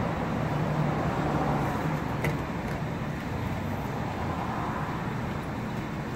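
Steady road traffic noise from passing cars, with a single light click about two seconds in.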